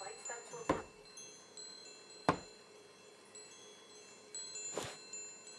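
Wind chimes tinkling, high ringing tones starting and dying away at different pitches. Three sharp thuds break in: under a second in, about two seconds in, and near the end.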